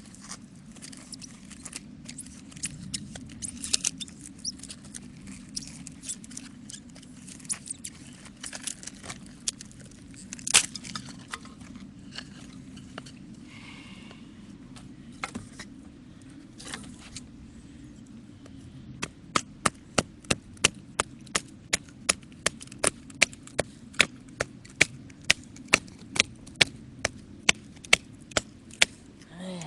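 Wood fire crackling with irregular sharp pops over a low rumble. About two-thirds of the way through, a run of regular sharp clicks starts, about two a second.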